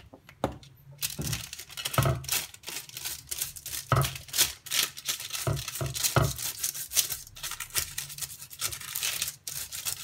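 Parchment paper rustling and crinkling as it is brushed with oil and smoothed by hand on a glass microwave plate, with several dull knocks along the way.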